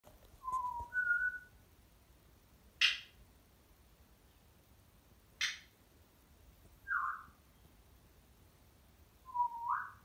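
African grey parrot whistling short single notes, the last one dipping and then rising sharply near the end, with two brief harsh squawks in between.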